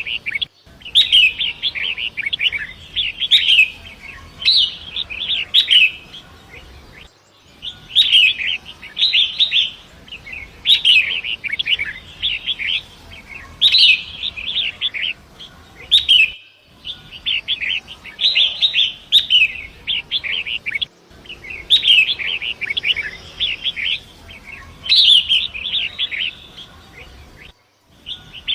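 Long-tailed shrike (pentet) singing: bursts of rapid, chattering, scratchy phrases a second or two long, one after another, over a faint steady rush of flowing water. The song drops out suddenly for a moment a few times.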